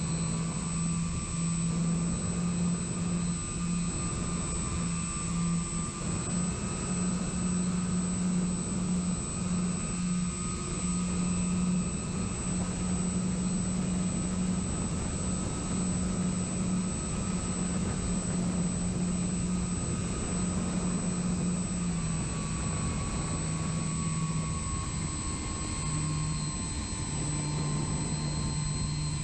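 Electric motors and propellers of a radio-controlled model plane in flight, heard from its onboard camera with wind rushing past: a steady propeller drone that steps up and down in pitch a few times, over a faint high whine.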